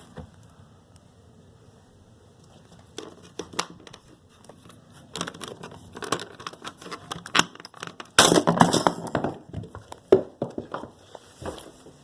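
Crinkling, rustling handling noise with scattered clicks, growing busier partway through and loudest for about a second near two-thirds of the way in.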